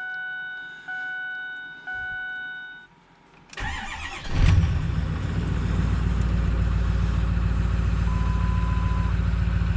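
A dashboard warning chime rings three times about a second apart. Then the 2008 Ford Super Duty's 6.4 litre Power Stroke V8 diesel cranks and starts about three and a half seconds in, and settles into a steady idle on its first start after an alternator replacement.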